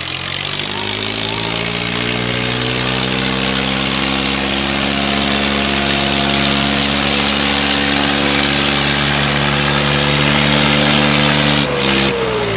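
Swaraj 855 tractor's diesel engine running at full throttle under heavy load while pulling against another tractor. The revs climb over the first couple of seconds and are then held steady. Near the end there is a brief break, and the revs begin to fall.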